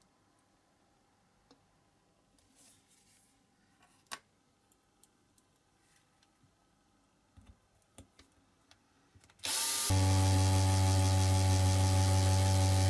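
A few light clicks and taps, then a cordless drill starts about nine and a half seconds in and runs at a steady speed.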